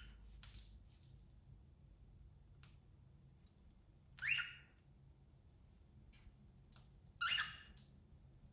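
Cockatiel giving two short, loud calls, one near the middle and one near the end, with a few faint clicks in between.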